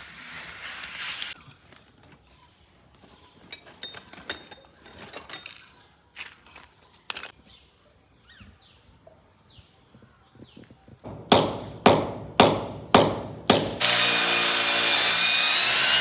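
A hand power tool at work: six sharp strokes about half a second apart, then the tool running steadily for about two seconds with a slight rise in pitch. Fainter scattered clicks come earlier.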